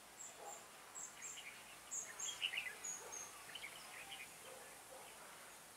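Red-whiskered bulbuls calling: a run of short, high chirps in the first two seconds, then louder warbling whistled phrases through the middle, loudest about two and a half seconds in.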